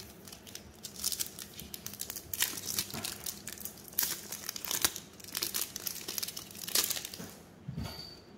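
Foil wrapper of a trading-card pack crinkling and crackling as it is handled and torn open, a dense run of crackles that dies away shortly before the end.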